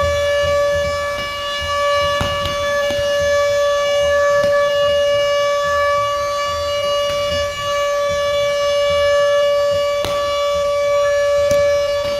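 A single steady high tone with overtones, held on one pitch without a break, over the noise of a large crowd, with low thumps repeating underneath and a few sharp cracks.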